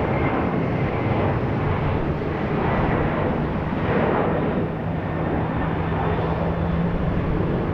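Boeing 767-300ER airliner's twin jet engines at takeoff power: a loud, steady wash of jet engine noise with a low steady hum beneath it.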